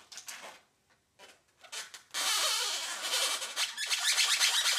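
A marker drawn across a latex twisting balloon, giving a loud scratchy rubbing with little squeaks. It starts about two seconds in, after a few faint rustles.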